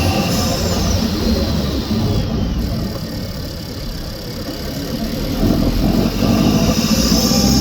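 Renault Megane 1.2 TCe turbocharged petrol engine running under the bonnet while driving, easing off around the middle and picking up again. A faint falling whistle fades over the first couple of seconds, and a higher hiss cuts out just after the start and comes back at the end, in step with the odd noise the owner hears only with the foot on the accelerator.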